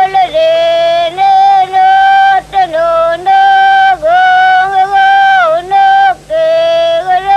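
A high voice singing a chant-like melody of long held notes, each joined to the next by a short dip or slide in pitch.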